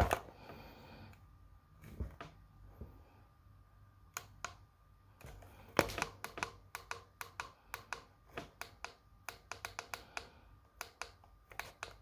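Small plastic clicks of a weather alert radio's front-panel buttons being pressed, a few at first and then quick runs of presses from about five seconds in, as its settings menu is stepped through.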